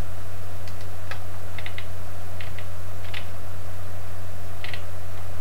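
Computer keyboard keys clicking now and then, single presses and a few quick pairs, over a steady low hum.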